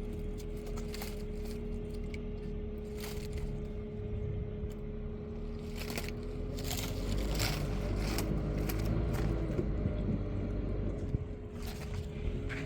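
Tractor engine running, its pitch rising and falling a few times as it works, with scattered knocks and scrapes.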